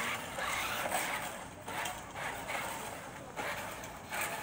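Small toy-grade RC rock crawler's electric motor and gearbox running as it drives across rough concrete.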